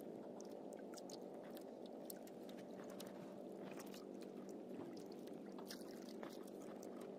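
Faint, steady wash of sea and wind around a small outrigger boat at sea, with scattered light clicks.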